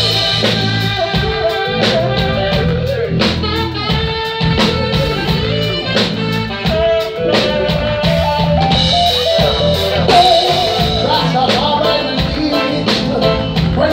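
Live reggae band playing, loud and steady: a drum kit keeping a regular beat, with guitar and other instruments.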